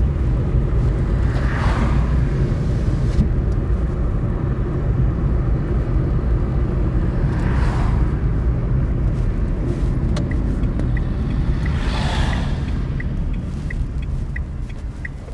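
Road noise inside a moving car: a steady low rumble of engine and tyres, with three short swelling whooshes of vehicles passing. A light regular ticking, about two a second, runs through the last few seconds.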